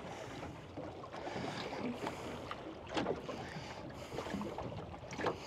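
Water washing around a small boat's hull, with wind on the microphone, and two short sharper knocks about three and five seconds in.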